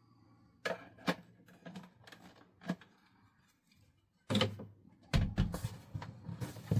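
Plastic vacuum parts and packaging being handled: a few light clicks and knocks, then heavier knocks and thumps about four seconds in, with rustling near the end.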